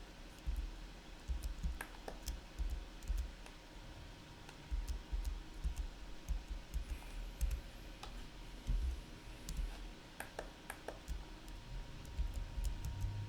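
Scattered computer keyboard key presses and mouse clicks, irregular and fairly quiet, with dull low bumps on the desk between them.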